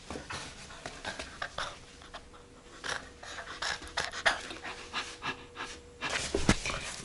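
A puppy panting quickly during rough play, with irregular scuffs and clicks of paws and claws on a linoleum floor and a louder scuffle near the end.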